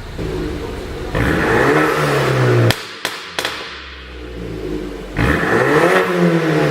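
BMW 428i engine revved with two blips of the throttle. After the first rev the exhaust gives three sharp pops in quick succession as the revs drop: the overrun pops of a tuned 'pop and burble' engine map. The second rev is still climbing at the end.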